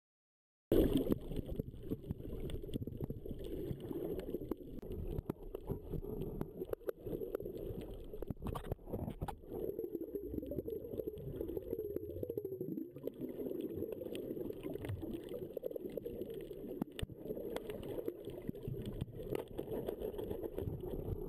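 Muffled underwater sound of moving water, a low rushing and sloshing with scattered sharp clicks and knocks, recorded with the microphone underwater. It starts abruptly about a second in.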